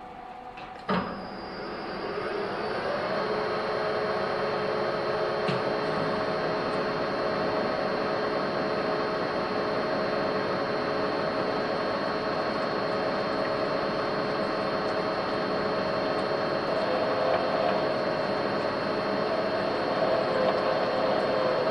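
Metal lathe switched on with a click about a second in, its spindle motor rising in pitch as it spins up, then running steadily with a whine. Near the end, a cobalt drill bit in the tailstock is fed into the spinning metal workpiece.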